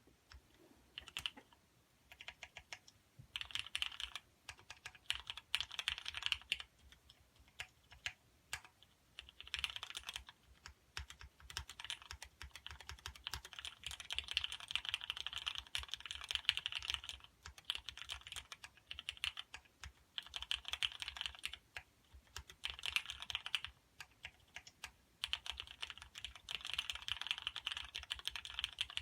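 Typing on a custom 84-key mechanical keyboard with linear Cherry MX Black switches on a Teflon plate: fast runs of key clacks a second or few long, broken by short pauses.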